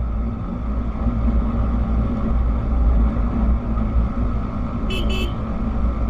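A two-wheeler's engine runs steadily on the move, with a heavy low rumble from road and wind. About five seconds in, a horn gives two short beeps.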